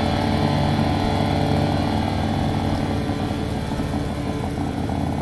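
Harley-Davidson V-twin motorcycle engine running at a steady cruising speed while riding, picked up by a phone in the rider's backpack; it gradually grows quieter over the last couple of seconds.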